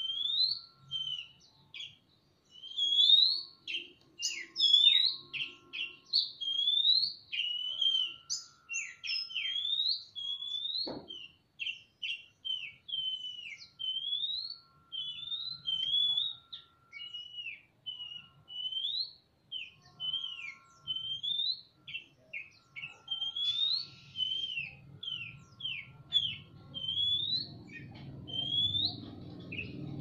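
Oriental magpie-robins (kacer) in an aviary singing a continuous string of loud, short whistled notes, each sliding up or down in pitch, the male and female answering each other. One knock about eleven seconds in, and a low rumbling noise building near the end.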